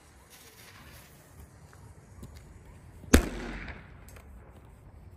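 A Super Magnum firecracker exploding once about three seconds in, with one sharp bang and a short echo.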